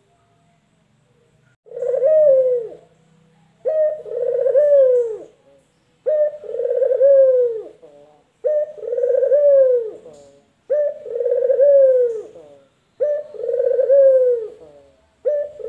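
Male Barbary (ringneck) doves cooing: seven two-part coos about every two seconds, each a short note followed by a longer note that rises and then falls, after a near-silent first second and a half.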